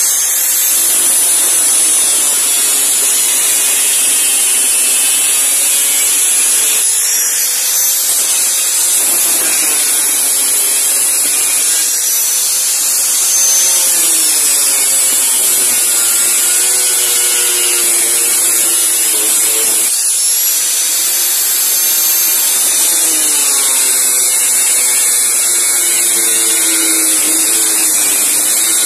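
Angle grinder with a thin cut-off disc cutting through a steel machete blade, running continuously with a harsh high hiss. The motor's whine dips and recovers several times as the disc bites into the steel.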